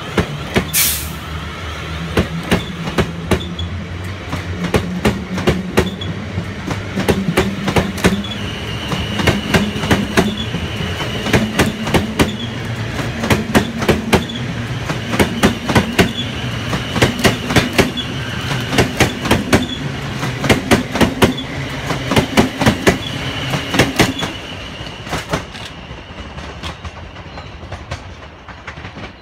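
South West Trains Class 450 Desiro electric multiple unit passing close by, its wheels clicking over the rail joints in regular pairs, over a low hum and a steady high whine. The sound fades away in the last few seconds as the train clears.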